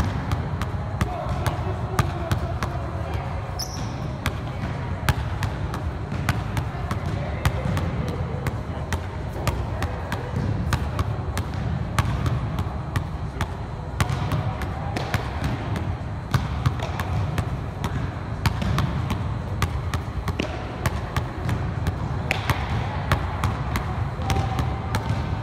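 Basketball dribbled hard on a hardwood gym floor, a steady run of sharp bounces about two or three a second through a crossover, between-the-legs and behind-the-back dribbling sequence, over a steady low hum.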